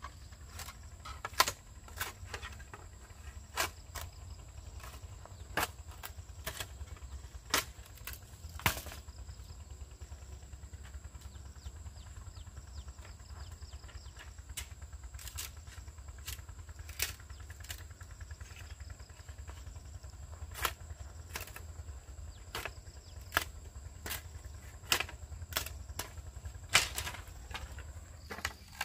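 Machete striking bamboo poles: sharp, irregular knocks and chops every second or two, over a low steady rumble.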